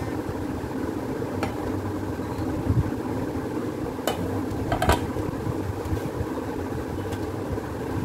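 A steady mechanical hum, like a running fan, under grated potato being washed by hand in a glass bowl of water, with a few short clicks and clinks from the bowl and plate.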